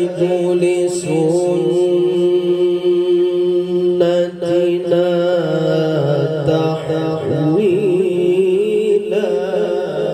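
A man's voice chanting Quran recitation (tilawah) into a microphone, amplified through a loudspeaker, in drawn-out notes with wavering ornaments.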